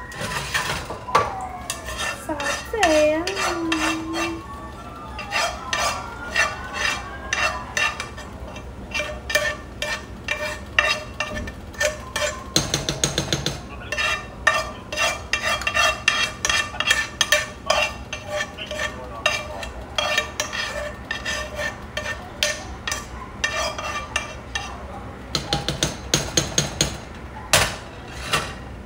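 A spoon scraping and clinking against a nonstick frying pan and a saucepan as sautéed onions are scraped into gravy and stirred: a steady run of quick, irregular clicks and scrapes.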